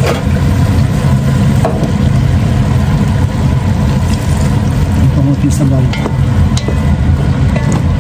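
Bottle gourd and meat sizzling as they sauté in a pot, stirred with a wooden spatula that scrapes and clicks against the sides. Water is poured into the pot about halfway through. A steady low rumble runs underneath throughout.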